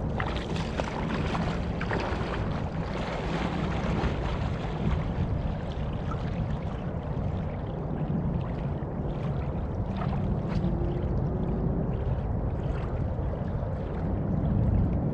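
Small waves lapping on a sandy lakeshore, with a steady low rumble of wind on the microphone. A person wading into the lake splashes in the first couple of seconds.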